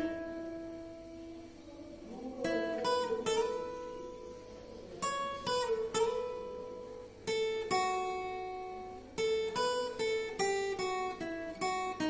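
Acoustic guitar played solo: a melody of single plucked notes in short phrases, each phrase ending on notes left to ring out and fade.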